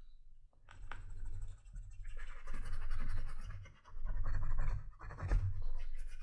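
Wooden edge slicker rubbed back and forth along the edge of a black leather holster coated with gum tragacanth, burnishing it: a rubbing sound in repeated strokes about a second each.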